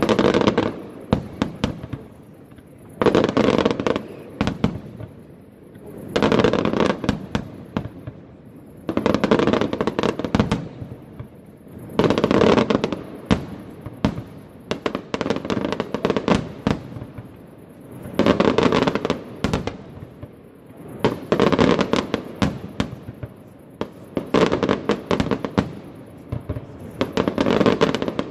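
Aerial fireworks display: volleys of shell bursts and crackling reports coming in waves about every three seconds, each wave a rapid string of bangs.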